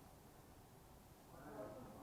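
Near silence with a low background rumble; faint, distant voices come up briefly near the end.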